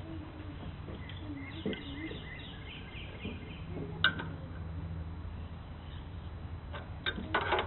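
Small birds chirping in short repeated notes over a low steady hum, with a sharp click about four seconds in and a short noisy burst near the end.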